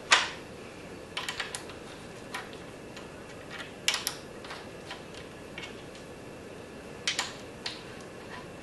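Sharp clicks and taps from hand work on a Grizzly G4015 mill-drill head as it is tightened down during tramming. The loudest click comes right at the start, and groups of quick clicks follow about a second in, around four seconds and around seven seconds.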